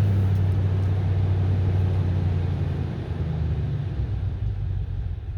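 Toyota Tundra engine idling just after starting, a steady low hum that eases off a little about four seconds in. The truck has a hard-start and rough-idle fault that the owner traces to a failing fuel pump driver module.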